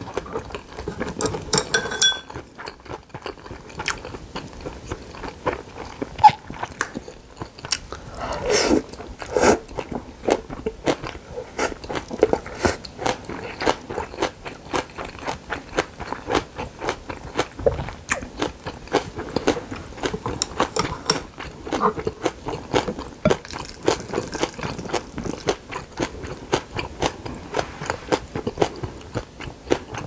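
Close-miked chewing of a mouthful of bibimbap with seasoned raw radish and bean sprouts: a continuous run of crunching with many small, quick mouth clicks.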